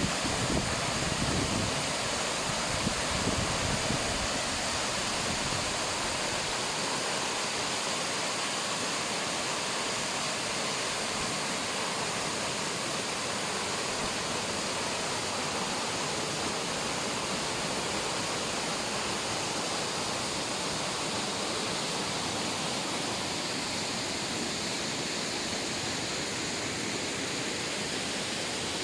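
Mountain waterfall rushing steadily, a dense even roar of turbulent water running high after snowfall.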